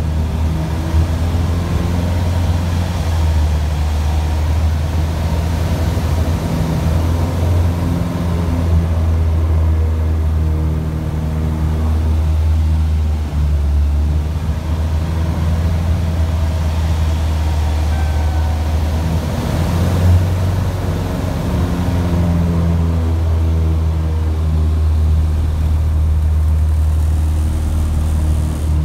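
Champion Citabria's four-cylinder piston engine and propeller heard from inside the cockpit during aerobatic manoeuvres: a loud, steady drone whose pitch drifts up and down slightly as power and airspeed change.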